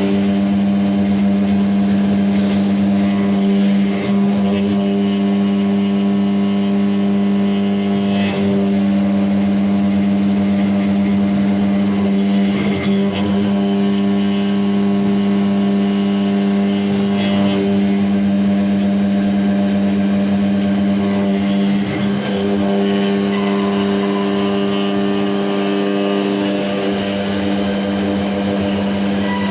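Metal engraving CNC machine running with a steady, even hum, broken by a short scratchy noise about every four to five seconds.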